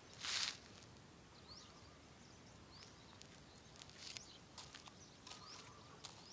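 Small birds chirping faintly outdoors: short high upward-sweeping chirps repeated every second or so. A brief rush of noise comes right at the start.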